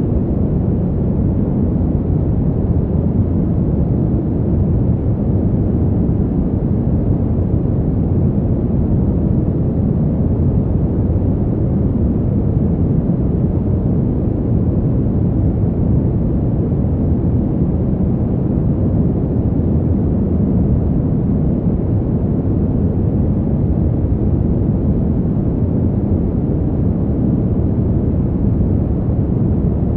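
Fan heater running steadily: a continuous, deep rush of air with little high hiss, unchanging throughout.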